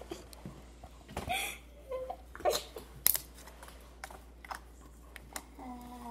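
Slime being squished and pulled by hand, with a few short wet pops and clicks, light giggling, and a short hummed note near the end.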